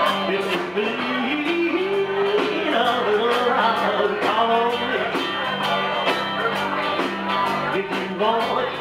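Live band playing a song on electric guitars and drums with a steady beat, a melody line bending over a held bass note.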